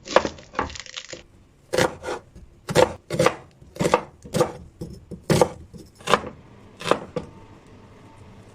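Kitchen knife chopping vegetables on a cutting board: a string of sharp strikes, uneven but about one to two a second.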